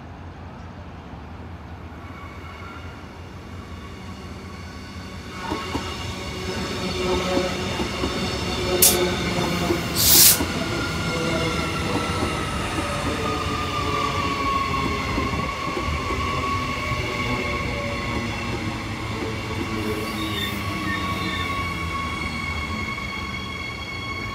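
Queensland Rail IMU electric multiple unit pulling into the platform. Its noise builds from about five seconds in, with two short, sharp bursts of noise a little over a second apart. Its whine then drops in pitch and settles to a steady tone as it slows.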